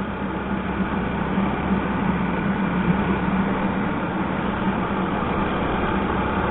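Yamaha SZ motorcycle's single-cylinder engine running steadily under way, under a constant rush of wind and road noise with a steady low hum.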